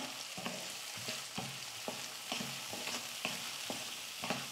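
Diced vegetables sizzling in oil in a kadai as they are sautéed, with a wooden spatula scraping and knocking against the pan about twice a second.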